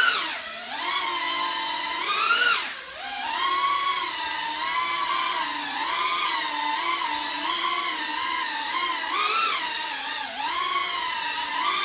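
Small 130 mm FPV quadcopter hovering: a high whine from its motors and propellers, its pitch wavering constantly as motor speed changes, with a sharp rise and drop about two and a half seconds in.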